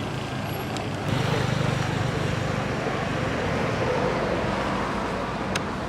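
Steady low hum of a motor vehicle's engine running, with background noise, growing louder about a second in.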